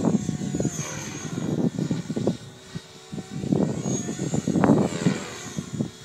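Electric Align T-Rex 550 RC helicopter flying at a distance: a thin high rotor and motor whine that swells about a second in and again about four seconds in. Gusty wind buffets the microphone, heaviest at the start and near the end.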